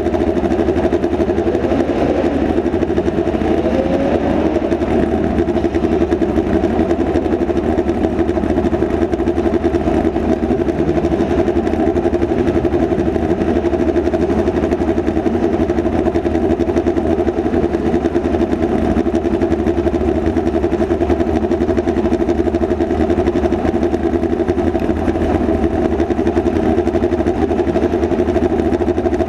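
Midget race car's engine heard from an onboard camera in the cockpit, running steadily at an even speed. There is a brief rise in pitch about three seconds in.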